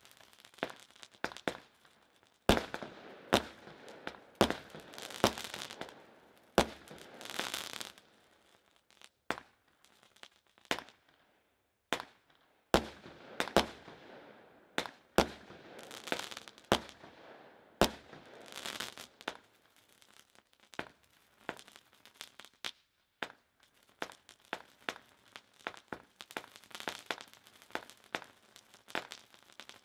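92-shot consumer fireworks cake firing: sharp reports one after another at irregular intervals, some followed by a second or two of noisy hiss as the effects burn out, with a sparser spell about a third of the way in.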